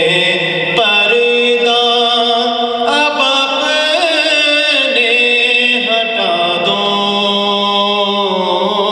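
A man's voice chanting a devotional naat into a microphone, holding long notes that bend and slide in pitch.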